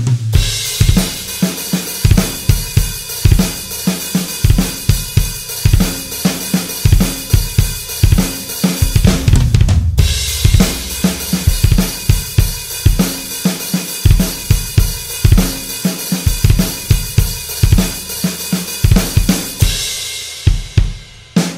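Electronic drum kit played with a double bass drum pedal: fast runs of kick-drum strokes under snare and cymbals. The playing breaks off briefly about ten seconds in, and near the end the cymbals die away under the last kicks.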